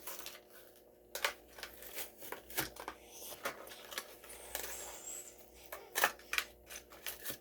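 Plastic blister pack and cardboard backing of a Hot Wheels die-cast car being handled and pried open: irregular clicks, crinkling and tearing, with a longer stretch of crinkling about halfway through.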